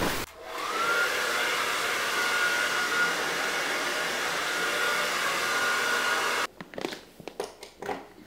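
Handheld hair dryer switched on, its motor spinning up to a steady whine over a rush of air, then switched off abruptly after about six seconds. A few light handling clicks follow.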